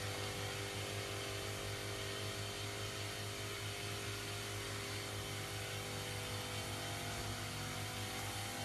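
Battery-powered knapsack sprayer's electric pump running steadily while it sprays, an even hum with a constant hiss.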